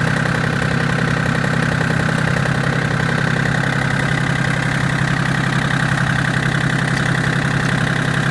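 John Deere 770 compact tractor's three-cylinder diesel engine running at a steady speed, heard from the operator's seat.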